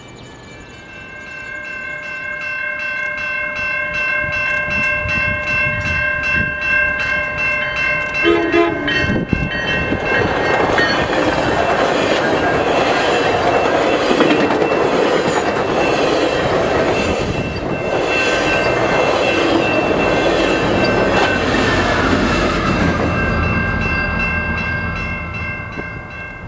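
A crossing bell rings steadily with even strikes while a GO Transit commuter train comes closer. About ten seconds in, a string of bilevel coaches passes close by with a dense rumble and clickety-clack of wheels on rail, which fades away near the end.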